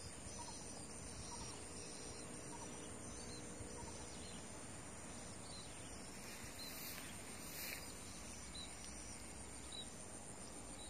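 Faint outdoor insect chorus: a steady high drone with short high chirps repeating about once a second.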